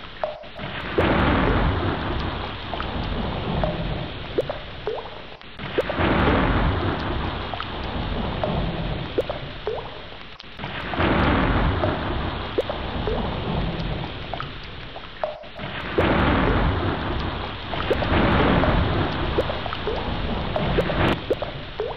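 Heavy rain with rumbling thunder. The noise surges suddenly about every five seconds and then fades away, in an evenly repeating pattern.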